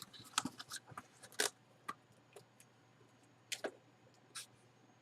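Scattered light clicks and taps of small objects and packaging being handled on a table, a few sharper knocks among them.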